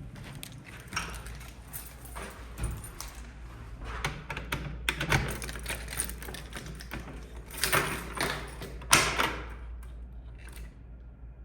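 Irregular metallic clicks, clacks and rattles of hardware being handled, with the loudest clacks about 5, 8 and 9 seconds in, then quieter near the end.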